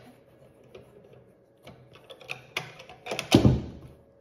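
A small screwdriver and fingers working the battery cover inside a steel safe: a run of light clicks and taps, with one louder knock a little past three seconds in.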